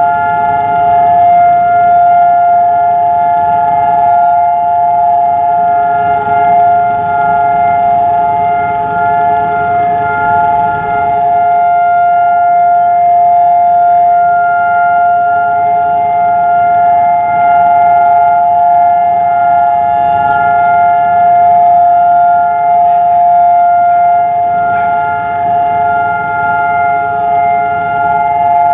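Civil defense air raid siren sounding one long, loud, unbroken tone at a steady pitch, two close pitches held together without rising or falling: the two-minute memorial siren of Holocaust Remembrance Day.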